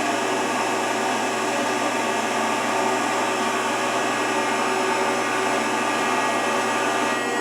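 Rockford 36-inch hydraulic planer running on its first start in about 30 years: a steady mechanical hum and hiss from its hydraulic drive, with several steady tones that hold at one pitch.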